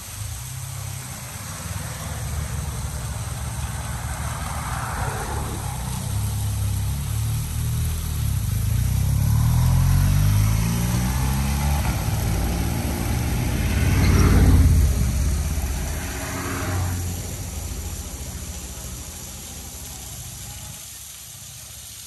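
Road traffic passing close by: engine noise swells and fades as vehicles go by. The loudest one passes about two thirds of the way through, its engine pitch gliding as it goes.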